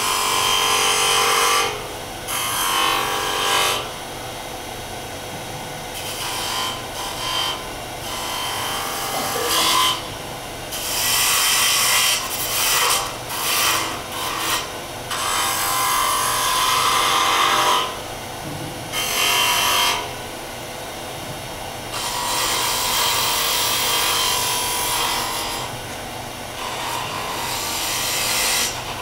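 A turning tool cutting a spinning wooden spindle on a lathe. It makes a hissing, scraping cut in repeated passes of about one to four seconds each, with quieter gaps between them.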